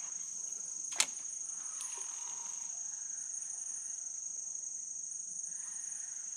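A steady, high-pitched chorus of rainforest insects, with one sharp click about a second in.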